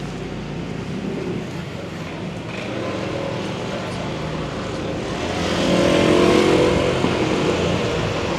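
Motor vehicle passing on a town street over steady traffic noise, growing louder from about five seconds in and easing off near the end.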